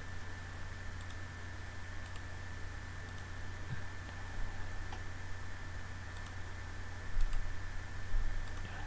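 Scattered light clicks of a computer mouse and keyboard, several seconds apart, over a steady low hum and a faint steady high tone.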